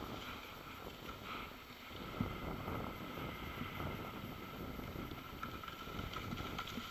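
Wind buffeting the microphone of a moving camera: a steady rushing with irregular low gusts.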